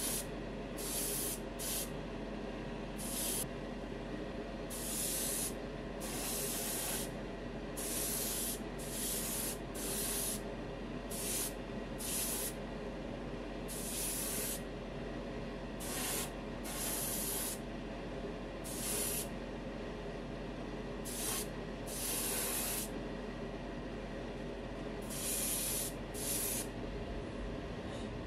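Gravity-feed airbrush spraying paint in short hissing bursts, about twenty of them, some under half a second and some about a second long, over a steady low hum.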